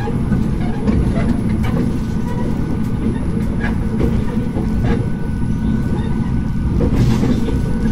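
Diesel railcar running along the line, heard from the cab: a steady low engine and running-gear rumble with wheel-on-rail noise, and a few sharp clicks over it.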